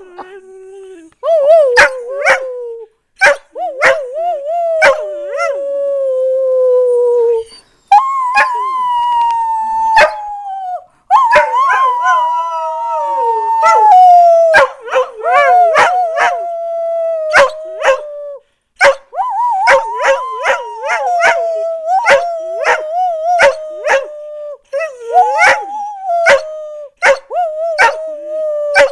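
Greyhounds rooing: long, wavering howls that slide slowly down in pitch, in several drawn-out rounds with short breaks between, at times two dogs together.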